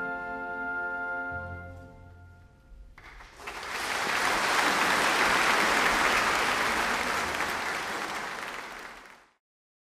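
Symphony orchestra holding the closing chord of the song, fading out about two seconds in. Then the audience applauds loudly until the sound cuts off suddenly near the end.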